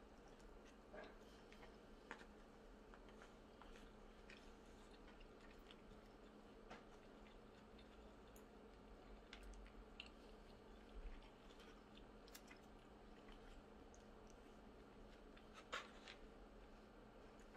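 Near silence: faint room hum with soft chewing and scattered small clicks and taps of chopsticks on plastic bento trays, one sharper tap near the end.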